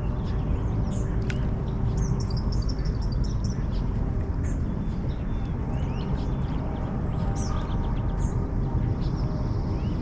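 Birds chirping in short high calls, with a quick run of chirps about two seconds in, over a steady low background rumble.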